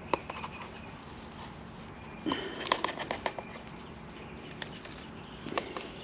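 A few light knocks and clicks with some rustling, most of them about two to three seconds in: ground coffee being tipped and tapped out of a blade grinder's stainless steel bowl into a plastic tub.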